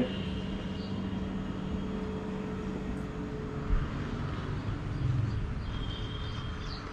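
Steady low mechanical rumble with a faint hum, swelling slightly about five seconds in.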